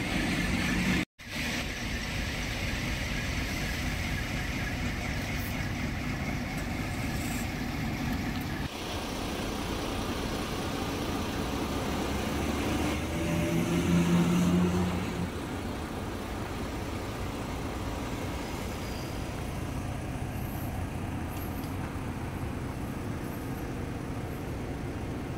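Volvo B11 coach's diesel engine running at idle, a steady rumble, with a louder engine note swelling briefly about thirteen seconds in.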